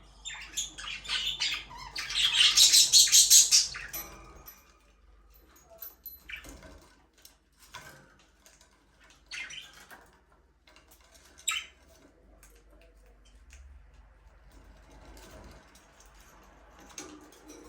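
Budgerigars chattering and squawking. A loud burst of dense, harsh squawks comes about two seconds in and lasts a couple of seconds, followed by scattered single chirps.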